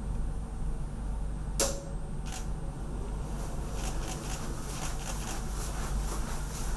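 Two sharp clicks a little under a second apart, then a run of fainter, quicker clicks, over a steady low hum.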